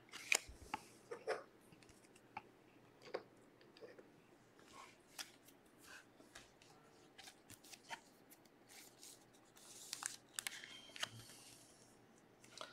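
Trading cards being handled and slid in and out of clear plastic sleeves: faint, scattered clicks and crinkles of plastic and card, with a denser burst of rustling about ten seconds in.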